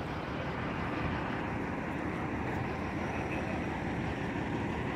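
Steady low rumble of an idling truck engine.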